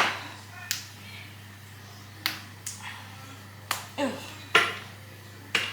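A bar of 70% baking chocolate being snapped into pieces: a series of separate sharp snaps, about seven, spaced irregularly.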